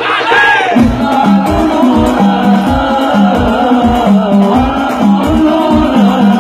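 Darbuka played in a fast, driving rhythm, with deep bass strokes about two to three times a second and sharper slaps between, in a percussion ensemble with frame drums under a melody line.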